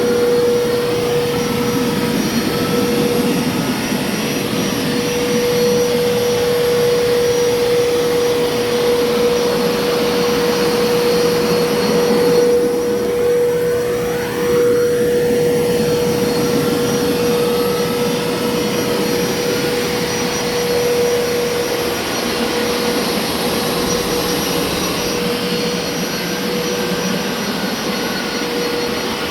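Hoover upright carpet cleaner running steadily on the carpet: a motor hum with a constant whine. Its sound briefly changes about halfway through.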